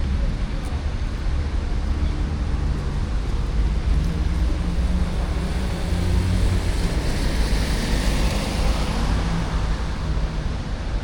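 Street traffic on a wet road: a vehicle engine running with a steady low hum, and a hiss of tyres on wet asphalt that swells and fades as a vehicle passes, about six to nine seconds in.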